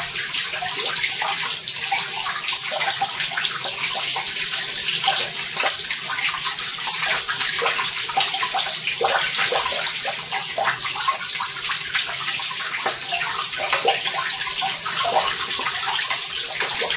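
Water running in a thin sheet over rock: a steady splashing trickle with many small, bright plops throughout.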